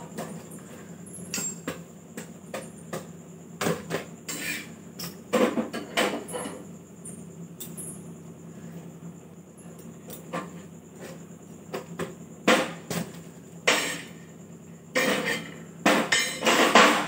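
Metal roti tongs and a flat tawa griddle clinking and knocking on a gas stove as rotis are turned and puffed: scattered sharp clatters, coming thick and fast near the end.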